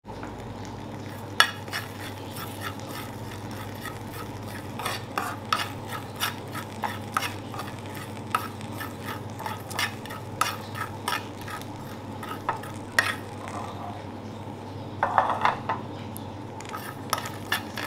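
A metal utensil stirring seasoning in a pan, clinking against it at irregular moments, with a light sizzle of hot oil.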